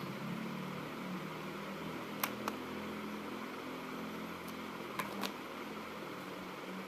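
Steady background hiss with a low hum, broken twice by a pair of short sharp clicks about a quarter second apart, about two seconds in and again about five seconds in.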